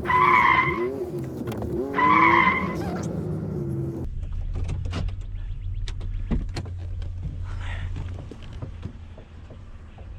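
A van being maneuvered into position, its engine running with two short, high squeals in the first few seconds as it turns. From about four seconds in the engine settles to a steady low idle with scattered small clicks.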